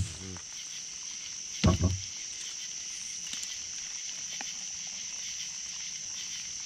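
Crickets trilling steadily in a high, even chorus, with one brief loud grunt-like sound about two seconds in.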